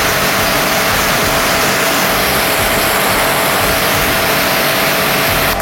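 Orion Superjet 100S pressure washer running and spraying: a steady loud hiss of the water jet over the machine, with a faint steady whine, cutting off abruptly at the end.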